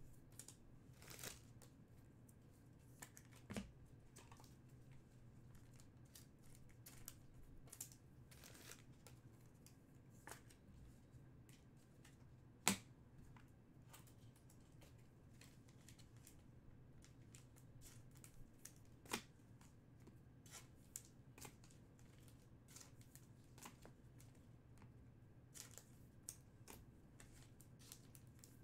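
Faint handling of chrome trading cards and packs: quiet rustles and scattered small clicks over a faint low hum, with two sharper clicks, one near the middle and one about two-thirds through.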